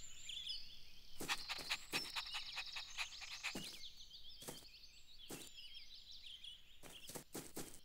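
Faint background birdsong: small birds chirping and twittering, with short soft clicks scattered through it.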